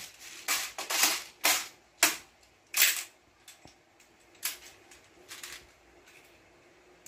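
Double Bell 058M M4 airsoft electric rifle firing single shots on semi-auto: about five sharp cracks roughly half a second apart in the first three seconds, then a couple of fainter clicks.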